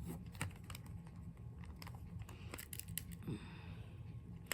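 Scattered light clicks and small rattles from handling the plastic housing and screws of an old hair dryer being taken apart, with sharper clicks about half a second in and near the end, over a faint low steady hum.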